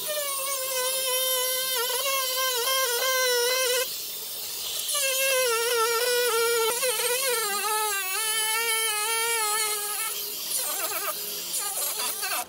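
Angle grinder cutting a sheet of Forex PVC foam board: a steady high motor whine in two long passes with a short break a third of the way in, its pitch sagging as the disc bites, fading out near the end.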